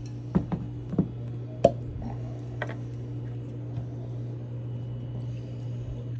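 Whiskey bottle being handled and uncorked: a few sharp clicks and knocks in the first three seconds, the sharpest about one and a half seconds in, over a steady low hum.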